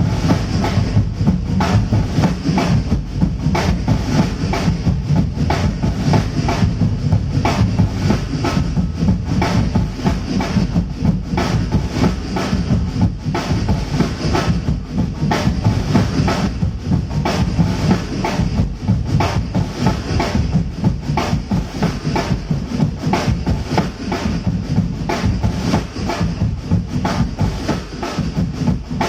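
Drum-heavy music played loud over a large PA system during a sound check, with a fast, steady beat and heavy bass.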